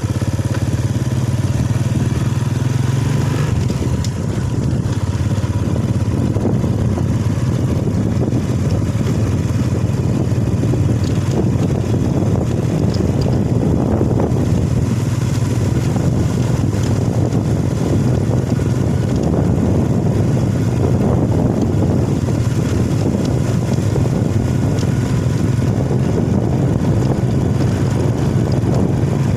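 Motorcycle engine running steadily under way, with road noise, and a brief dip in level about four seconds in.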